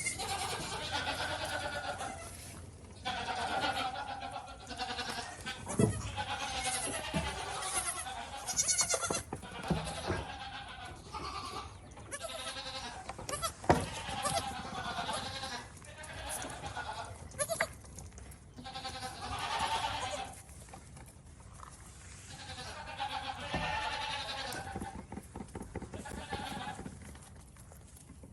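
Goats bleating, one call after another, many of them quavering. Two sharp knocks, about six and fourteen seconds in, are the loudest moments.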